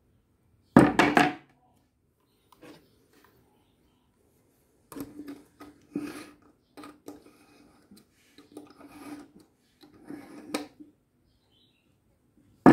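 A steel kitchen knife drawn repeatedly through the wheels of a hand-held pull-through knife sharpener: a run of short strokes about one a second, from about five seconds in. A loud knock about a second in and a sharp click near the end.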